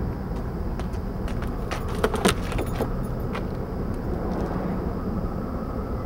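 Steady low outdoor rumble, with a few small clicks and rattles about two seconds in.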